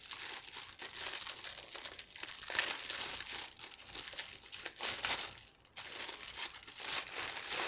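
Clear plastic packaging bag crinkling as it is handled and opened by hand, with a brief pause a little past halfway.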